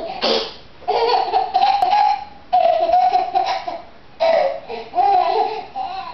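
A baby boy laughing hard: high-pitched laughter in four bursts, three of them long, with short breaths between.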